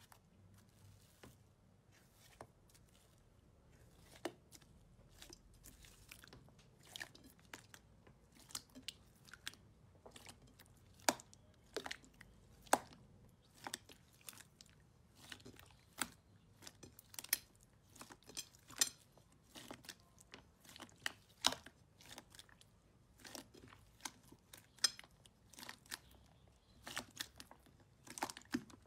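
Sticky green slime being kneaded and stretched by hand, crackling with many short irregular pops and clicks as it sticks and pulls apart. The pops come sparse at first and grow denser and louder from about ten seconds in.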